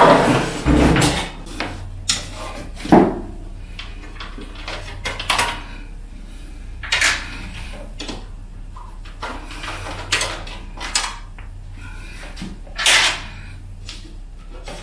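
Hands working inside an open desktop computer case as a PCIe expansion card is fitted: scattered clicks, knocks and scrapes of metal brackets and parts being handled, with the sharpest knocks about 3 s in and near the end.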